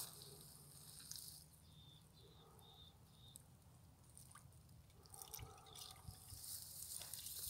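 Faint wet clicks and drips of a common raven pecking at ice and water in a shallow puddle. A few short high peeps about two to three seconds in.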